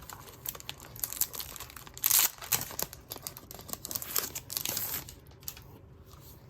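Packaging crinkling and rustling as a planner notepad and dashboard are handled and unwrapped, loudest about two seconds in and quieter after about five seconds.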